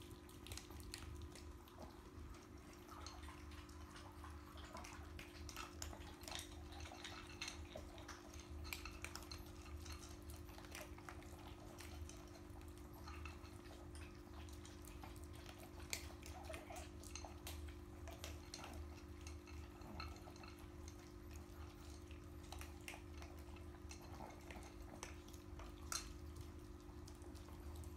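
Pomeranian eating from a bowl: faint, irregular small clicks and crunches of food against the bowl, over a steady low hum.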